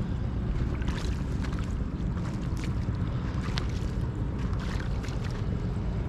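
Wind buffeting the microphone as a steady low rumble, with light splashes and sloshes of shallow lake water scattered through it.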